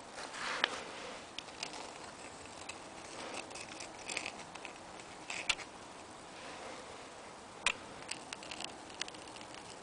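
Fine pen drawing on paper: short, scratchy strokes, with a few sharp ticks and taps in between.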